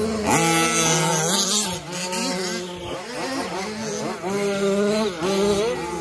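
Several radio-controlled 4WD racing trucks' motors whining, each rising and falling in pitch over and over as they accelerate and back off around the track, overlapping one another over a steady hiss.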